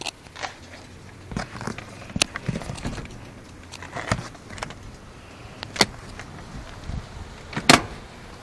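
Handling noise from a handheld camera moving through a car interior: irregular clicks, taps and rubbing against the leather seats and trim, with a louder knock near the end.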